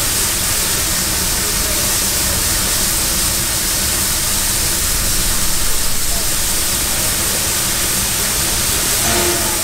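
Steady hiss of steam from a standing steam locomotive.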